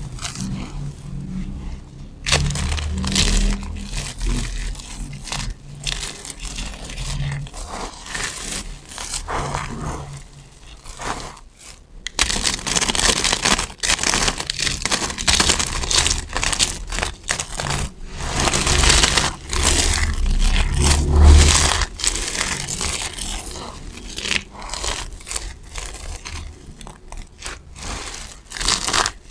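Hands crunching and scrunching a heap of dry soap shavings: a dense, continuous crackle of brittle flakes rubbing and snapping. Partway through, the crackle grows louder as thin slabs of dry soap are snapped and crushed between the fingers.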